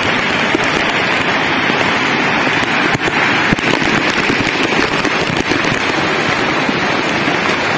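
Waterfall and monsoon-swollen stream rushing over rocks close by: a steady, loud hiss of water full of fine crackling splashes.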